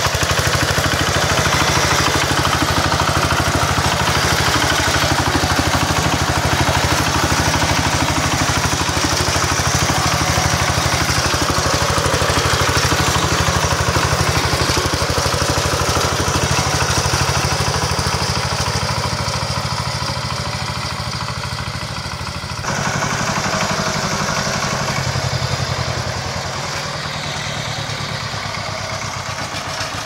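Kentavr MB 1010DE-6 walk-behind tractor's single-cylinder diesel engine running steadily with a rapid, even beat as the tractor drives off. The sound fades somewhat over the last third, jumps back up abruptly a little past twenty seconds, and drops again a few seconds later.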